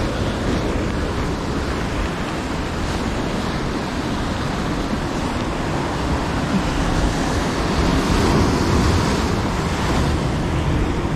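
Rough sea surf breaking and washing over rocks close below, a continuous rushing that grows somewhat louder about eight seconds in.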